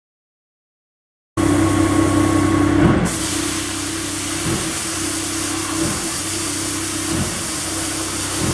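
Silence for about the first second, then a forklift engine running steadily as it pushes a steel flatbed into place on a pickup truck's frame.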